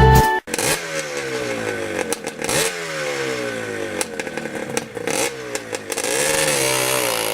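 Motorcycle engine running at speed, its pitch falling in several long glides and jumping back up between them, then wavering and fading toward the end. Guitar music cuts off just before the engine comes in.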